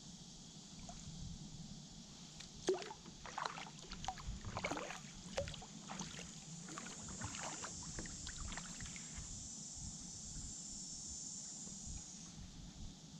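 Kayak paddle strokes: a run of water splashes and drips from the blade for several seconds, the sharpest about two and a half seconds in, over a steady high hiss.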